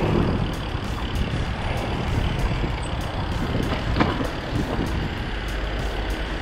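Bicycle rolling over a brick-paved pavement among street traffic: a steady rumble of tyres and passing vehicles, with a sharper knock about four seconds in.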